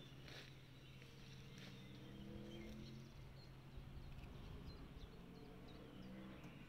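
Near silence: faint outdoor ambience with a low steady hum and a few faint high chirps in the second half.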